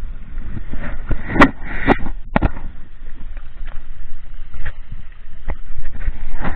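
Wind buffeting the microphone and water rushing and splashing along the hull of a Hobie Adventure Island sailing kayak under way, with a few sharp knocks about one and a half to two and a half seconds in.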